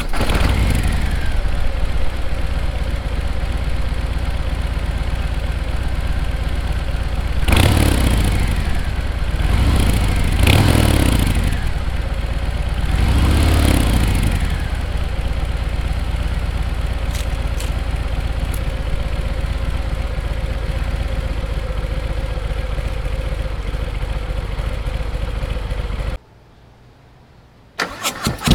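Harley-Davidson Fat Bob 114's Milwaukee-Eight V-twin idling through Rinehart 4.5-inch slip-on mufflers. The rider blips the throttle several times in the middle, then lets it settle back to a steady idle. Near the end the sound drops away for about a second and a half and then returns.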